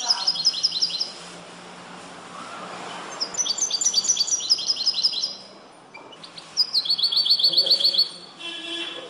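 Caged European goldfinch (chardonneret), trained in the limpio song style, singing three bouts of rapid, evenly repeated high notes, each lasting one to two seconds, with short pauses between them.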